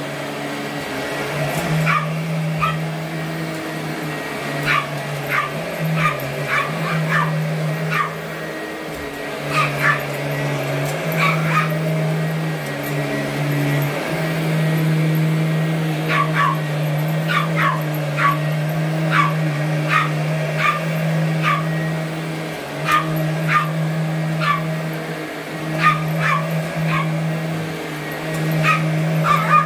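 A small Boston terrier barks at a running upright vacuum cleaner, giving dozens of short, sharp barks in quick runs. Underneath, the vacuum's motor hums steadily, its pitch shifting slightly from time to time.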